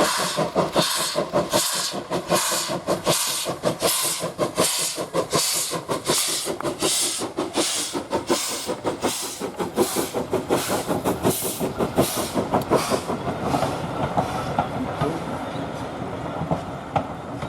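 Ivatt 2MT 2-6-2T steam tank locomotive working hard up a steep gradient, its exhaust beating about twice a second. About thirteen seconds in the beats fade, leaving a steadier rumble of the train on the rails.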